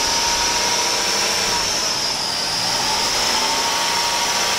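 2002 Dodge Caravan's 3.3-litre V6 idling steadily, heard close up in the open engine bay, with a thin high-pitched whine over the engine noise. It runs evenly without knocks or misses, a sign of an engine in good running order.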